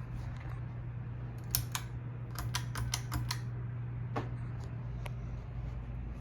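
Hunter Oakhurst II ceiling fan motor humming steadily while it turns slowly on a bad capacitor. A quick series of sharp clicks comes about a second and a half in, with two more single clicks later.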